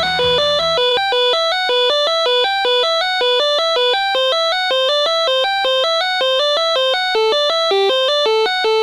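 Music: a fast, evenly repeating run of bright single notes with no vocals. The low bass drops out about a second in.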